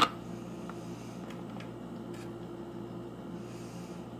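A single sharp knock right at the start, then a steady low room hum with a few faint clicks.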